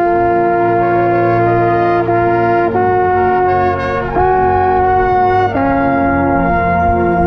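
Marching band brass playing loud held chords, the harmony moving to a new chord every second or two, with a brass horn right at the microphone.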